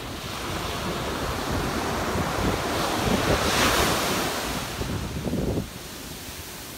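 Ocean surf on a sand beach: a wave builds and breaks, its crash loudest a little past the middle, then the wash falls away sharply near the end. Wind rumbles on the microphone underneath.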